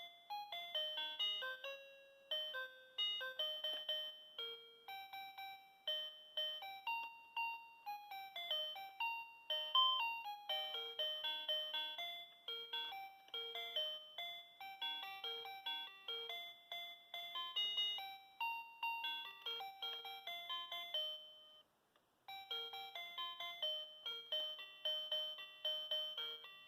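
Children's toy electronic keyboard playing a melody in simple, chime-like electronic tones, note after note. The tune stops for about half a second around 22 s in, then starts again.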